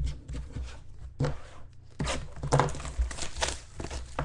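Trading-card pack wrappers and cards being handled, with irregular crinkling and tearing rustles.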